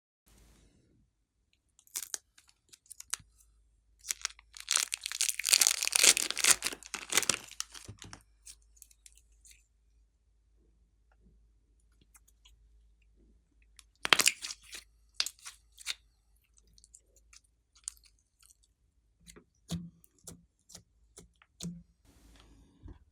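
Glossy slime being squished and kneaded by hand, giving sticky clicks and crackling pops: a dense run of crackling about four seconds in, a sharp cluster of clicks midway, and softer pops near the end.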